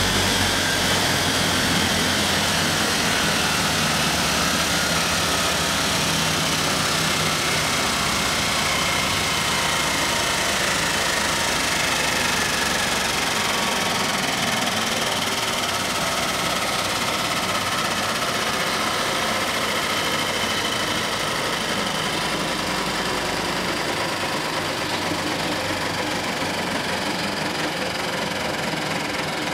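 Double-head pallet stringer notcher machine running steadily, its motors and spinning cutter heads making an even machine noise.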